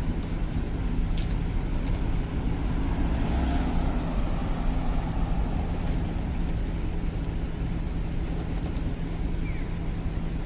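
Steady city street traffic noise with a low rumble and hum, swelling as a vehicle passes a few seconds in.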